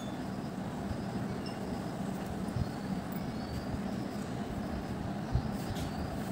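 Steady low background rumble with a couple of soft knocks.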